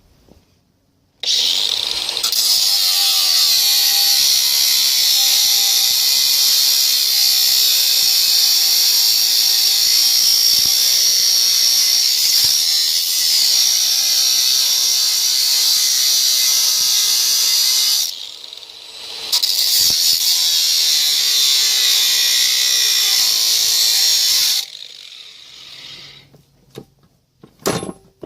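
Ryobi cordless angle grinder cutting metal, a loud steady hissing grind in two runs, the first about 17 seconds long, with a short break about 18 seconds in, then the disc spins down. A short knock near the end.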